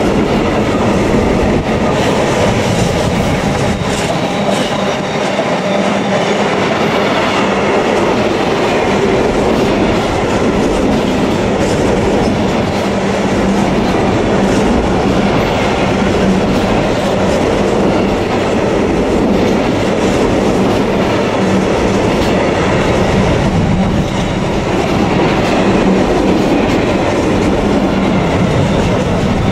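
Container freight train's flat wagons passing close by, a loud, steady rumble and clatter of wheels and bogies on the rails with a steady low hum underneath.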